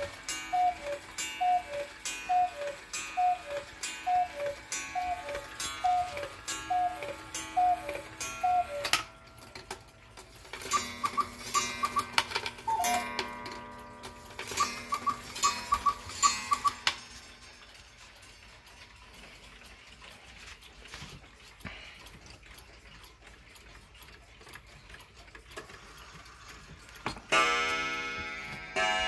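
Cuckoo clock calling: about a dozen falling two-note cuckoo calls, each with a sharp strike, for the first nine seconds. A second cuckoo clock, being set by hand, then sounds shorter groups of higher notes, and quiet ticking follows. Near the end a Seikosha pendulum wall clock strikes its gong once, ringing and slowly dying away.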